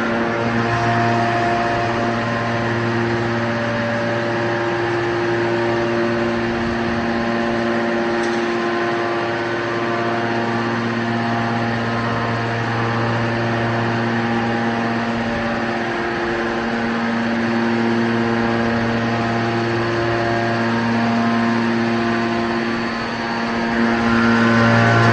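Hydraulic scrap-metal baler's motor and pump running with a steady hum, its pitch holding constant.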